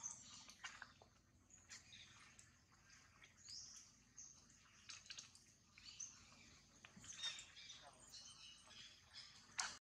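Near silence: faint outdoor ambience with soft, scattered high bird chirps and light rustles.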